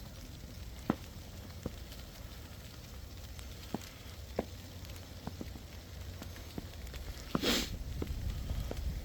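Outdoor ambience in a heavy snowfall: a steady low rumble with scattered faint ticks and crackles, and one short louder rustle about seven and a half seconds in.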